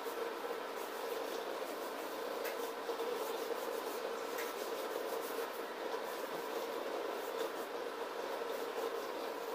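Bristle paintbrush scrubbing a coating onto a corrugated sheet, in short scratchy strokes, over a steady background hum.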